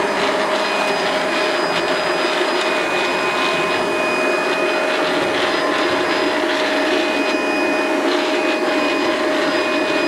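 Cleanmate QQ-2 robot vacuum running as it drives about, its fan and brush motors giving a steady whir with a high whine on top.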